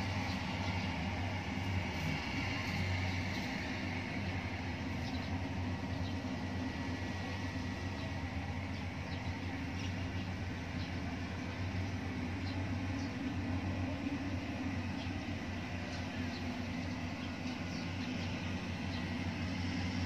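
Engine of a small rice combine harvester (reaper) running steadily as it harvests the paddy, a continuous low drone heard from across the field.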